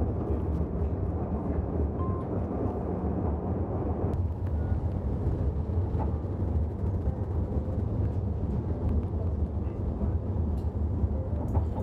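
Steady low rumble inside the cabin of a moving city passenger vehicle, with a few faint ticks and rattles.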